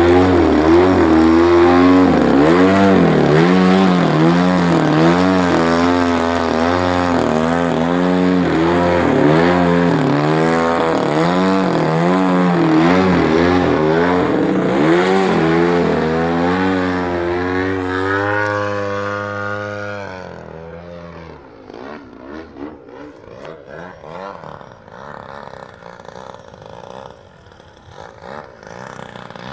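Desert Aircraft DA-60 single-cylinder two-stroke gas engine, on its stock muffler, turning a 24x9 carbon propeller on a large aerobatic model plane. Its pitch rises and falls about once a second with the throttle. About twenty seconds in the engine sound falls away sharply, leaving only a faint, uneven sound.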